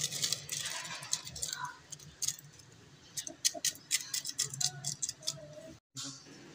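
Butter paper crinkling and crackling as a hand presses it flat into the bottom of a metal pot, with a quick run of sharp crackles in the middle; it breaks off abruptly near the end.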